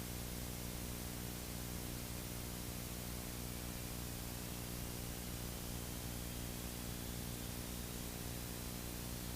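Beechcraft Bonanza's single piston engine droning steadily at takeoff power during the takeoff run, under an even hiss, with a faint whine slowly rising in pitch.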